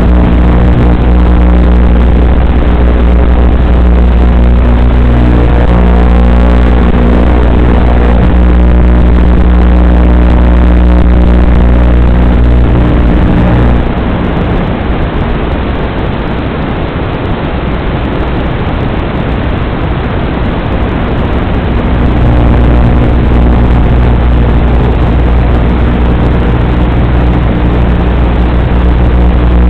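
Loud, steady electrical buzz of evenly spaced tones on an analog FPV video receiver's recording. About halfway through it breaks up into harsh static for several seconds, then the steady buzz returns.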